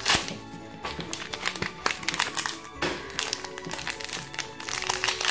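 Foil Pokémon booster-pack wrapper crinkling and crackling in the hands as it is torn open, over steady background music.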